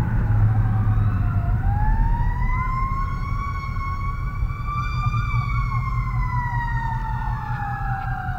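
An emergency vehicle's wail siren, one slow rise and fall in pitch over several seconds, over the low rumble of a car on the road.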